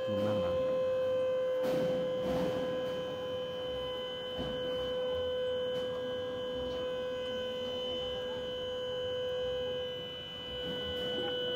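Hydraulic tailgate lift on a livestock truck, its pump giving a steady whine at one pitch as the loading ramp is raised.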